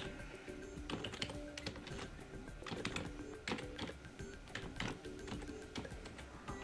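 Computer keyboard being typed on: irregular key clicks as an IP address is keyed in, over soft background music.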